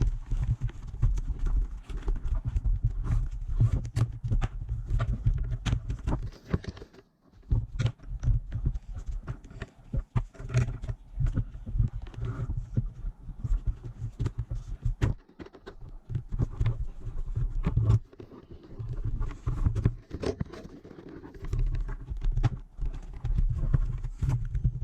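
Handling noise of a motorcycle helmet being worked on by hand: irregular knocks and taps with a low rumble as the helmet's inner padding is pressed back into the shell.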